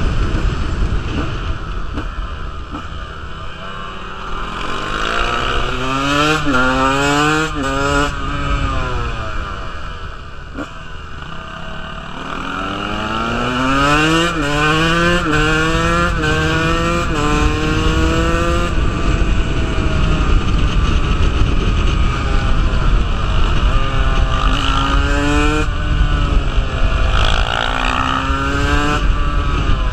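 KTM 125 dirt bike's two-stroke engine revving hard up through the gears, its pitch climbing and dropping back at each upshift in quick succession, with steadier running between the runs of shifts. Heavy wind rumble on the microphone throughout.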